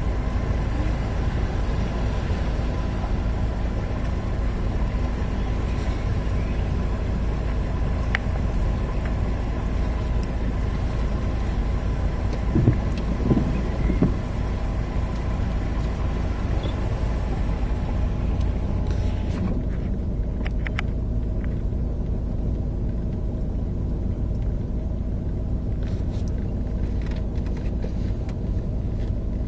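Steady low rumble of a car driving slowly along a flooded street, heard from inside the cabin. A hiss over it drops away about two-thirds of the way through, and there are a few short knocks around the middle.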